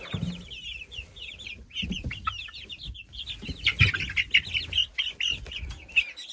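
A brood of baby chicks peeping: many short, high chirps overlapping in a continuous chorus, with a few low knocks about two and four seconds in.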